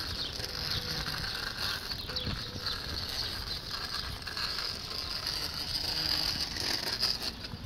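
Bicycle freewheel ticking steadily as the bike coasts, over outdoor background noise.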